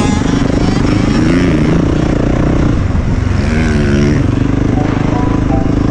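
Yamaha 450 four-stroke motocross bike engine under way on a dirt track, revs climbing and dropping a couple of times as the throttle is worked.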